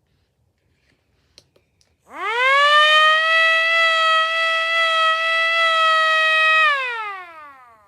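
Homemade model air-raid siren sounding a single tone: it winds up quickly about two seconds in, holds a steady pitch for about four seconds, then winds down in a falling glide near the end. A few faint clicks come just before it starts.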